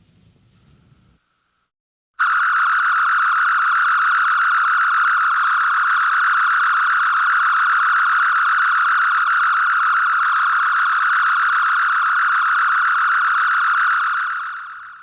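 Electronic sound effect from the original Star Trek series: a steady, fluttering buzz-like tone that starts abruptly, holds at one pitch for about twelve seconds, then fades away near the end.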